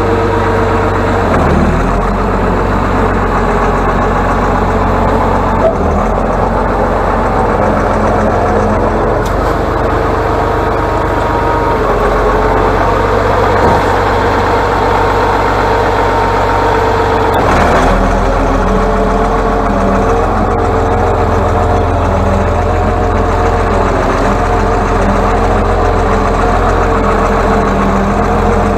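Atlas 1602 wheeled excavator's diesel engine running steadily and loudly while the machine moves, its engine note shifting about a second and a half in and again at about seventeen seconds.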